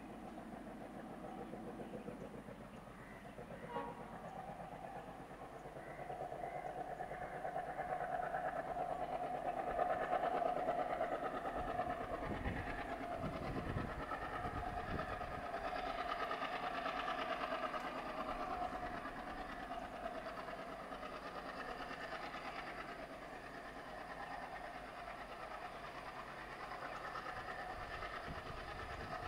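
WDG3A diesel locomotive with its ALCO 16-cylinder engine approaching at the head of a passenger train. Its drone grows louder over the first ten seconds or so, then holds steady, with a sustained tone through the middle stretch.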